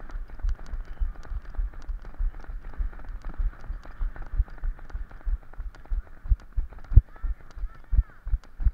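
Running footsteps on grass jolting a body-worn camera: dull low thuds about two or three a second, growing heavier near the end, with faint distant shouts.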